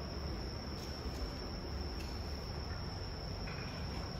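Crickets trilling steadily, heard as one high unbroken tone over a low room rumble.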